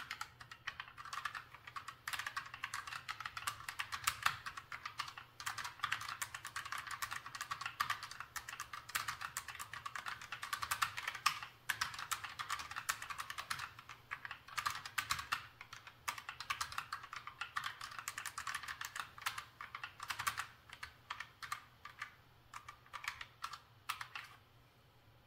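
Typing on a MoErgo Glove80 split ergonomic keyboard: a quick, uneven stream of key clicks from its low-profile Kailh Choc switches, thinning out and stopping shortly before the end.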